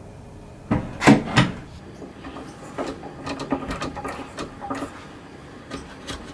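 Blue bar clamp being set against a wooden toy box and tightened on a freshly glued corner joint: three sharp knocks about a second in, then a run of lighter, irregular clicks.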